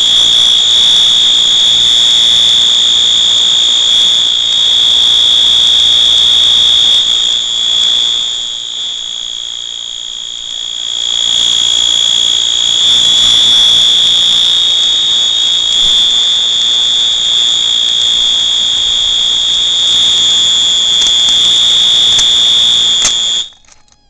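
Wheelock MT fire alarm horn sounding one steady, high continuous tone after a pull station is pulled, keeping on without cutting out on its new bell-wire hookup. It is briefly quieter midway and cuts off suddenly near the end.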